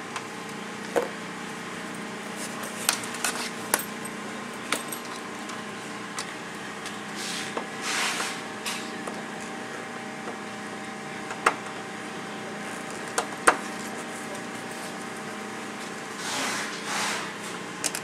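Small hardware handled by hand on a side-by-side's door: scattered sharp clicks and clinks of bolts and parts against the door panel, with two longer scratchy rustles, one about halfway through and one near the end, over a steady low hum.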